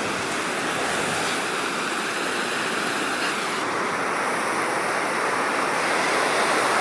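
Ocean waves breaking: a steady rushing wash of surf that grows a little louder toward the end.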